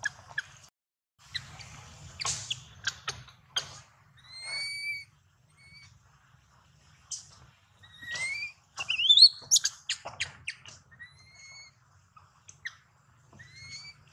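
Newborn long-tailed macaque giving repeated short, high squeaks that rise in pitch, loudest and most crowded about nine seconds in, while it roots at its mother's nipple: hunger cries of an infant wanting milk. Light rustling and handling sounds come between the calls.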